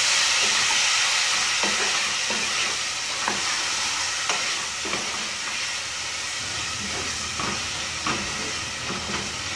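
Onion-tomato masala sizzling in a nonstick saucepan as a wooden spatula stirs moringa drumstick pods through it, with scattered scrapes and taps of the spatula against the pan. The sizzle is loudest at the start and eases slightly.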